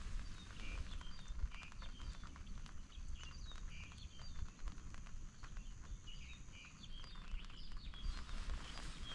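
Birds chirping: many short, high calls scattered throughout, over a low outdoor rumble. A thin, steady high-pitched whine stops about seven seconds in.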